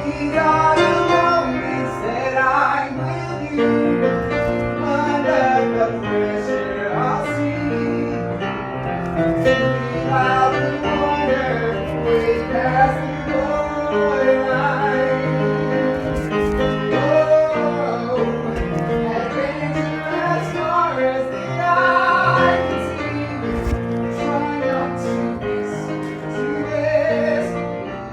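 Solo singer performing a soulful ballad with live piano accompaniment, the voice holding and sliding through long notes over sustained piano chords.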